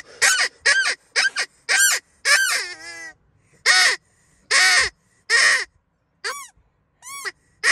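Hand-held mouth-blown predator call blown by a child, in about a dozen short, harsh blasts, some bending up and then down in pitch, with a brief pause a little past the middle.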